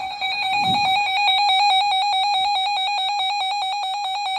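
Emergency Alert System attention signal: a loud, steady electronic alert tone with a rapid even flutter, sounding between broadcast weather warnings.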